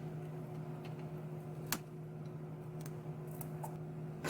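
Steady low electrical hum of recording noise, with a few faint small clicks and ticks of a tool prying at a tablet's battery. The sharpest click comes a little under two seconds in.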